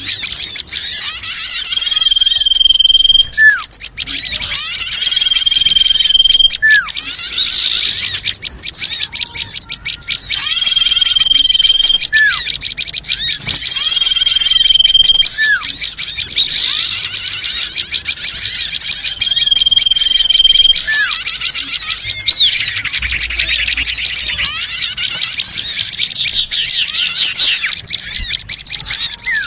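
Recorded bird-lure call of many small birds: dense, continuous chattering and twittering, with a long steady whistle note repeated five times and short downward chirps between them.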